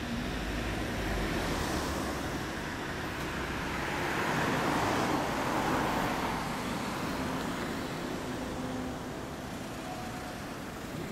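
Road traffic noise: a passing car swells and fades, loudest about four to six seconds in.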